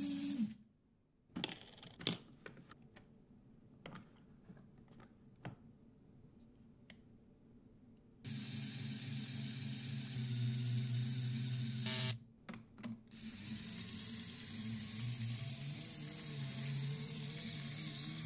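Small Lego electric motor and gear drivetrain, fitted with a locking differential, whirring as the car's wheels spin on soap-wet glass. It stops about half a second in; a few seconds of scattered small clicks and knocks follow. It runs again for about four seconds from about eight seconds in, stops briefly with a few clicks, then runs again, its pitch wavering near the end.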